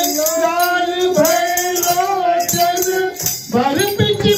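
Men singing a Holi song together, long held notes sliding in pitch, with shaken jingling percussion.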